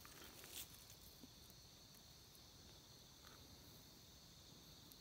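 Near silence: a faint, steady, high-pitched insect drone, with a few light rustles in the first second.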